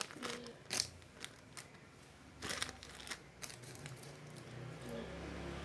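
Plastic packaging crinkling and rustling as it is handled, in scattered short crackles.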